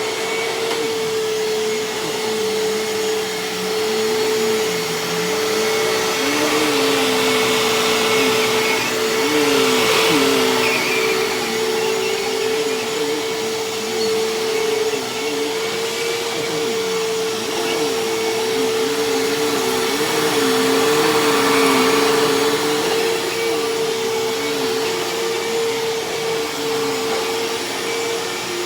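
Hoover Tempo bagless upright vacuum cleaner running steadily while picking up shredded paper. It makes a constant motor whine, with a lower tone beneath it that wavers up and down.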